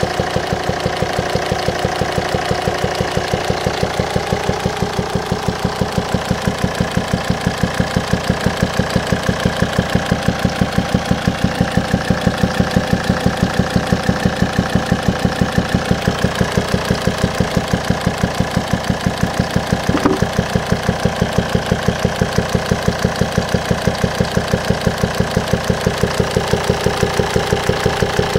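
Volvo D5 five-cylinder turbodiesel idling with a regular, fast popping from the air intake pipe to the turbo. It is not normal, and the owner suspects faulty swirl flaps or a stuck or broken intake valve. A single brief click about 20 seconds in.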